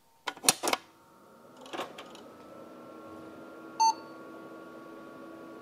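A Pentium 233 MMX desktop PC is switched on: its power button clicks sharply about half a second in, with another click near two seconds. Then the power supply and fans settle into a steady whir, and a single short POST beep from the PC speaker sounds a little under four seconds in.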